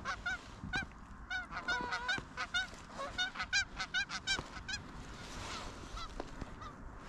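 Geese honking: many short honks overlapping in quick succession, thinning out after about five seconds.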